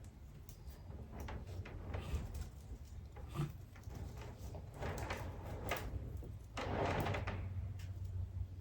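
Handling noises from wiring bonsai branches: scattered clicks and taps of wire and tools, and a longer rustling scrape about seven seconds in.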